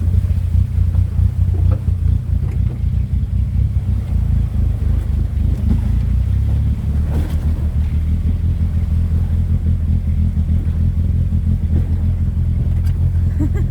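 Opel Blazer engine running steadily, a deep, fluttering low drone, in the condition just before it is pulled down for an engine overhaul.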